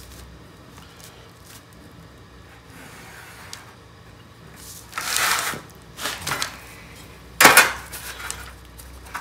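Marker pen drawing straight lines along a metal rule on bare sheet steel: a few short scratchy strokes, then a louder sharp scrape and knock near the end as the rule is shifted on the panel.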